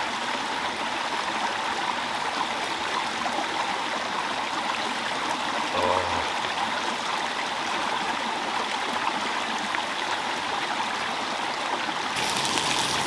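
Steady rush of a small stream's running water. Near the end a brighter, harsher hiss comes in.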